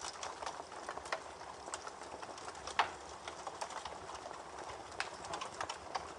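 Campfire crackling with frequent sharp pops and snaps, one louder pop near the middle, over the steady babble of a creek.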